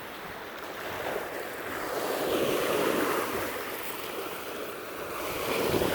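Lake Erie waves washing onto a rocky beach, swelling and easing twice, with some wind on the microphone.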